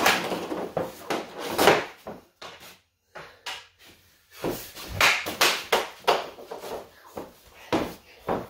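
Hockey stick shooting a puck on a concrete floor: several sharp cracks of blade on puck and puck hitting the net and backstop, each with a short echo, the loudest at the start, about two seconds in, about five seconds in and near the end, with lighter knocks between.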